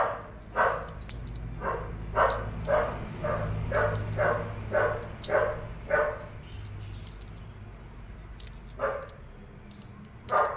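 A dog barking over and over, about two barks a second, stopping for a few seconds past the middle and then barking again near the end.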